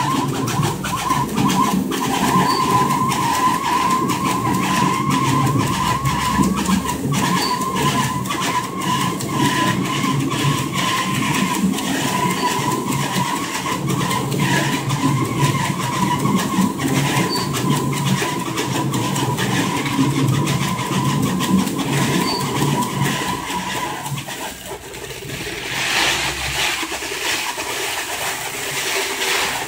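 Turntable stretch wrapper running, its turntable rotating the pallet while 18-inch 80-gauge blue stretch film is drawn off the roll under brake tension alone, with no pre-stretch head. It gives a steady wavering whine over a low rumble, with a faint high tick about every five seconds. The whine stops about 24 seconds in, and a rougher, higher noise follows for a couple of seconds near the end.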